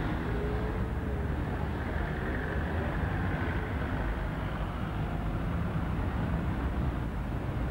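Street traffic: cars passing close by while a tram approaches along the street, a steady low rumble with faint whines that rise and fall.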